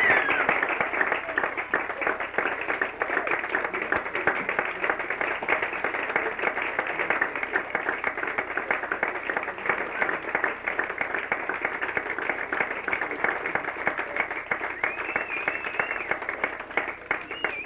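Audience applauding: many hands clapping steadily, with a faint high wavering sound near the end.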